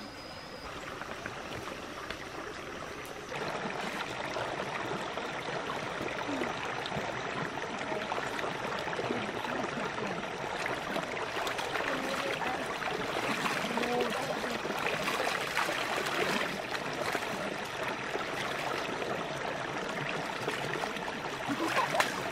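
Shallow rocky stream running steadily, with hands scooping and splashing water as people wash their faces in it. The flow grows louder a few seconds in.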